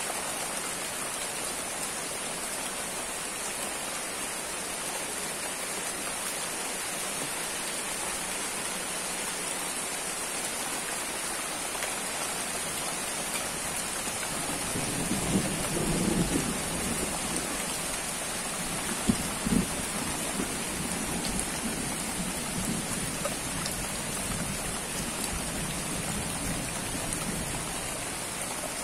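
Steady rain falling on leaves and wet ground. About halfway through, a low rumble of thunder swells and fades, followed a few seconds later by a couple of sharp knocks.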